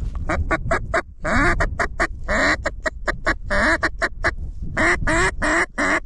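Mallard duck call blown in a fast run of about twenty loud quacks, short notes broken by a few longer, drawn-out ones, calling to ducks.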